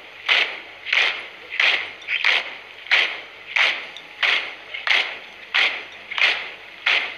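A formation of marchers stepping in unison in stiff, stamping parade step, their shoes striking the pavement together in a steady rhythm of about three beats every two seconds.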